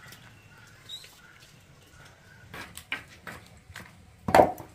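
Several soft clicks and knocks in the second half, then one loud, sharp knock or thud near the end.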